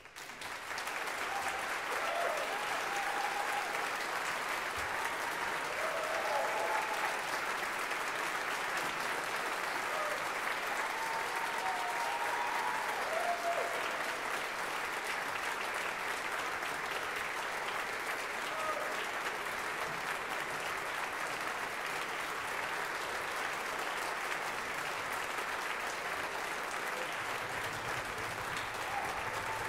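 Audience applause breaks out all at once and keeps going steadily, with a few cheers rising above it in the first half.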